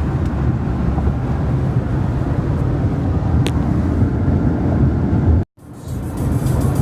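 Steady low rumble of a car driving on the road, with a brief cut to silence about five and a half seconds in.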